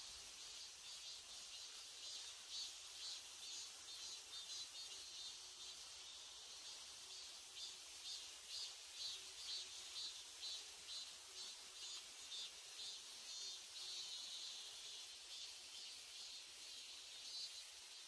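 Insects chirring in woodland: a steady high-pitched hiss with rapid pulsing chirps repeating several times a second.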